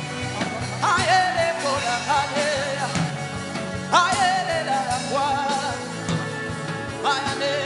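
Background worship music: a voice sings long, wavering phrases over a steady drum beat, with new phrases entering about one, four and seven seconds in.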